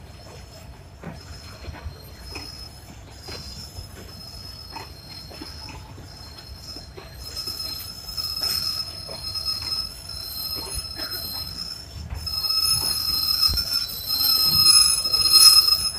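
Indian Railways sleeper-class passenger coaches rolling past at slow speed, wheels squealing on the rails with steady high-pitched tones that grow louder from about halfway and are loudest in the last few seconds. Under the squeal run a low rumble and regular wheel clicks over rail joints.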